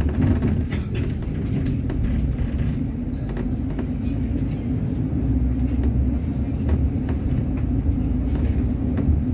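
Steady low rumble of a city bus heard from inside as it drives: engine drone and road noise, with a few light knocks and rattles.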